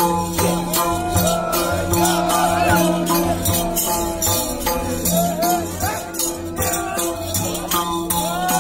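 Madal barrel drums beating a steady dance rhythm, with bright jingling percussion on the beat and voices singing a Bhailo song together.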